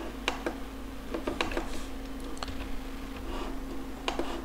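Computer mouse clicks: several short sharp clicks, some in quick pairs, over a steady low hum.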